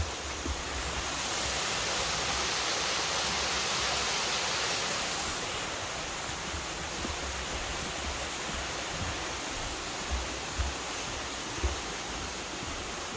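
Steady rush of flowing water from a river and waterfalls, swelling a little about a second in and easing after about five seconds, with a few low thuds near the end.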